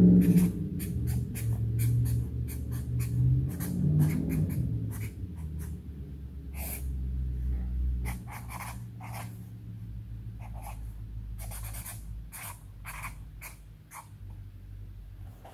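Green Sharpie marker writing on a pink sticky note: a long run of short, quick, scratchy pen strokes with small gaps between letters, over a low hum that fades away by about halfway through.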